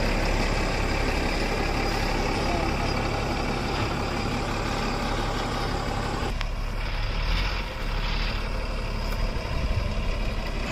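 Loaded Tata tipper truck's diesel engine running steadily as the truck moves slowly on a dirt track; the sound thins out abruptly about six seconds in.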